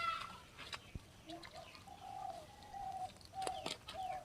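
Faint bird cooing: a string of short, even coo notes, starting about a second and a half in and repeating to the end.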